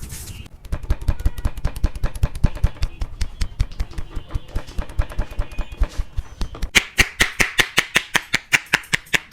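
Rapid, rhythmic strikes of a percussive head massage, about five to six a second: dull thuds for the first six seconds or so, then sharper slaps near the end.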